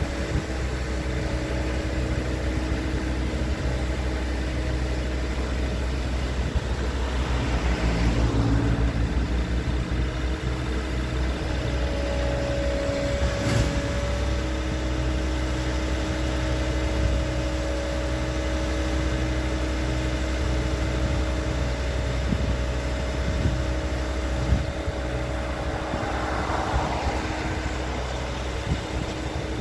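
Bobcat T66 compact track loader's diesel engine running steadily, with a constant hum, as the machine lowers a heavy oak log onto a trailer. The engine grows a little louder around eight seconds in, and there is a single knock about halfway through.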